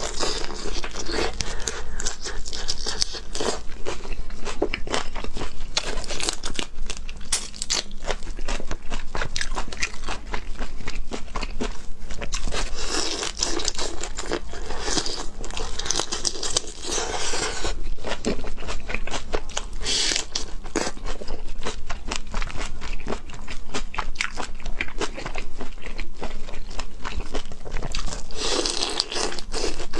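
Close-miked biting and chewing of whole shell-on prawns: a dense, unbroken run of wet crunches and clicks as the shells crack between the teeth.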